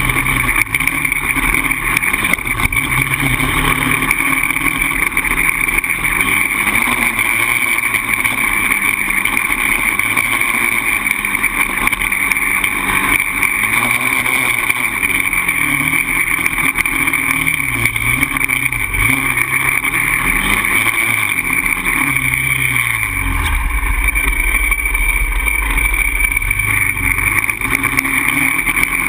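Polaris Outlaw 525 quad's single-cylinder four-stroke engine working under way, its pitch rising and falling with the throttle. Near the end it drops to a low, steady, idle-like note for a few seconds, then picks up again.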